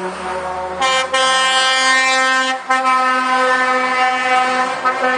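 Lorry air horn sounding a long held blast, starting just under a second in with brief breaks about a second in and again past halfway, over a passing diesel lorry's low engine rumble.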